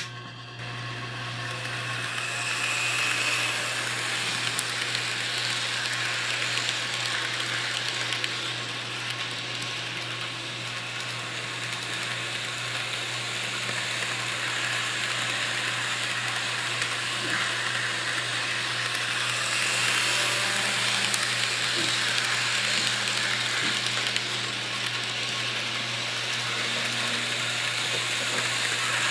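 N scale model trains running: a steady mechanical whir of small locomotive motors and running gear over the track, with a constant low hum underneath, getting a little louder about two-thirds of the way through.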